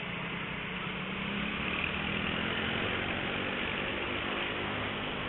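Motorcycle engine running as the bike rides slowly in traffic: a steady low hum that rises a little in pitch over the first couple of seconds, with road and wind noise on the camera's microphone.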